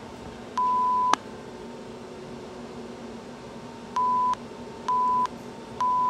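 Electronic countdown beeps at one steady pitch. One longer beep about half a second in ends with a click, then near the end come short beeps about once a second, counting down. A faint steady hum sits underneath.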